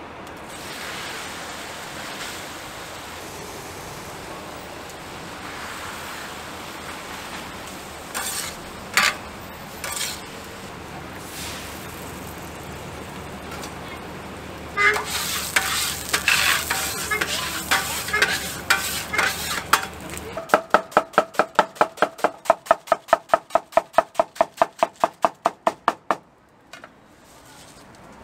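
Food sizzling on a flat iron griddle, with scraping and clatter of metal tools against the plate. Near the end, a knife chops quickly on a wooden cutting board, about four strokes a second for several seconds, shredding cabbage.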